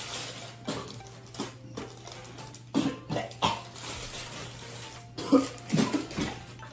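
A person coughing and clearing their throat in short, sharp bursts: a cluster about three seconds in and another, the loudest, around five to six seconds in.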